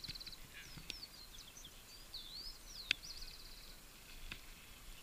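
Birds calling: repeated whistled notes that sweep up and down, several of them running into fast trills. A single sharp click about three seconds in.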